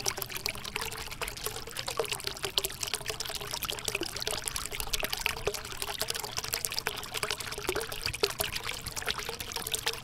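Small cement tabletop cascade fountain running: thin streams of water pour from spouts into bowls and a basin, a steady trickle and splash with many small drips.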